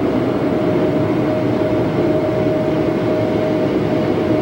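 Automatic car wash air dryer blowers running, a steady loud rush of air with a constant whine, heard from inside the car.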